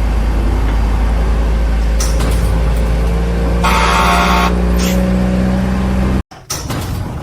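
Heavy vehicle engine running steadily with a deep rumble, a brief higher-pitched tone sounding over it about four seconds in. The engine sound cuts off suddenly about six seconds in.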